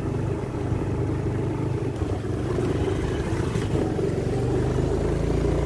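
Motorbike engine running steadily while being ridden, its pitch rising a little near the end.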